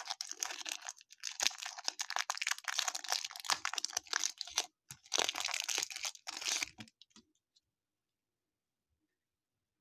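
Baseball card pack wrapper being torn open and crumpled, a dense crinkling crackle that stops suddenly about seven seconds in.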